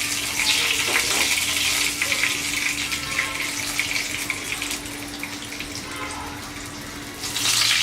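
Whole spices (bay leaves, cinnamon and cardamom pods) sizzling in hot mustard oil in a frying pan: a steady crackling hiss that eases off a little about six seconds in, then surges again near the end.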